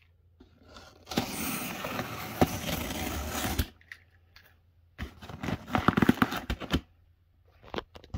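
Cardboard shipping box being opened: two bouts of tape tearing and cardboard scraping, the first about two and a half seconds long starting about a second in, the second shorter and full of sharp crackles.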